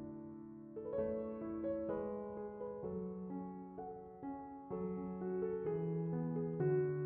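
Background piano music: a gentle melody of held notes and chords, changing every half second or so.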